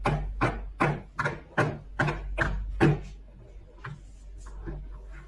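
Plastic horse figurines tapped on a hard floor in a hoofbeat rhythm, sharp knocks about two and a half a second. The knocks stop about three seconds in, leaving softer handling noises.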